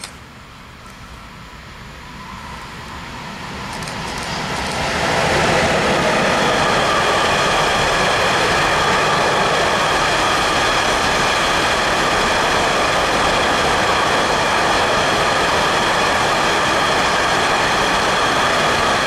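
Freight train of hopper wagons approaching and passing close by: it grows louder over the first five seconds, then runs as a steady loud rumble of wheels on rails with steady ringing tones over it.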